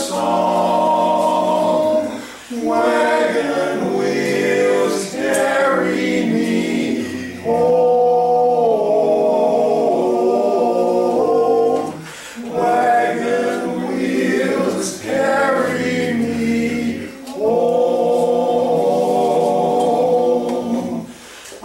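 Male vocal quartet singing a cappella in four-part harmony, with long held chords in phrases broken by short pauses every few seconds.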